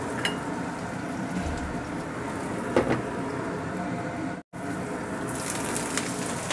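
Egg omelette with chopped basil frying in oil in a wok, sizzling steadily. The sizzle breaks off for an instant about four and a half seconds in, and a few sharp clicks come near the end.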